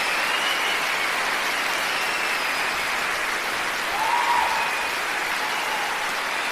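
Concert audience applauding steadily, with a few whistles rising over the clapping, the loudest about four seconds in.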